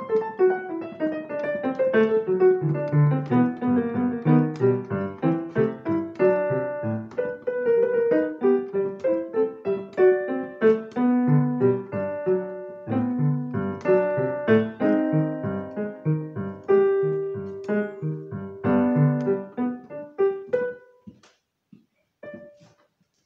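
Piano playing a short piece of quick repeated notes over a low repeating bass pattern. The piece ends about twenty seconds in, and the last notes die away.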